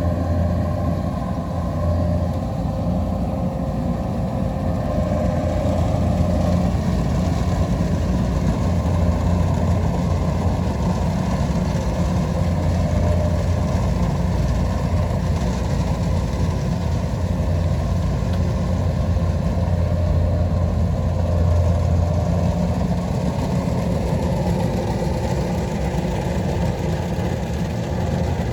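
Kubota DC-93 combine harvester running steadily at work harvesting rice: a continuous diesel engine hum with the clatter of its machinery mixed in. The deepest part of the hum drops away near the end.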